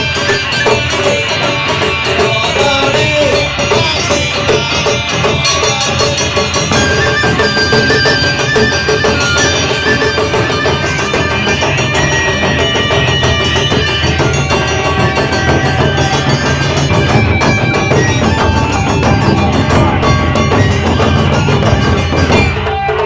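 Live traditional Japanese ensemble music: taiko drums beating a steady rhythm under plucked shamisen melody lines.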